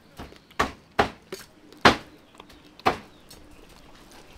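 A run of sharp knocks, about six in three seconds at uneven spacing, then a pause near the end.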